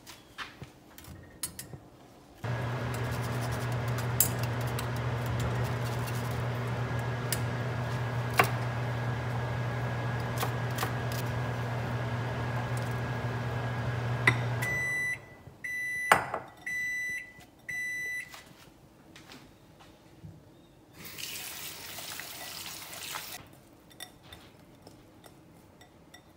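Microwave oven running with a steady low hum for about twelve seconds, then stopping and giving four short beeps to signal it has finished. A few seconds later a kitchen tap runs briefly.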